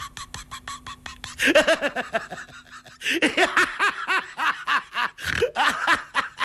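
A woman laughing hard in quick ha-ha pulses. It starts about one and a half seconds in, breaks off briefly around three seconds, then goes on. Before the laughter there is a fast, even ticking beat.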